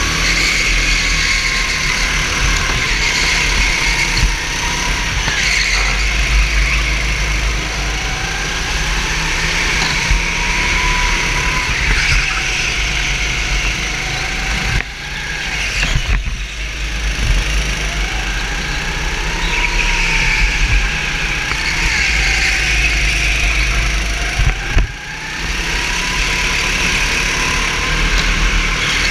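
Racing go-kart engine heard from on board at full race pace, its pitch repeatedly rising and falling as the kart accelerates and slows through the corners. The level dips briefly twice, once around the middle and once near the end.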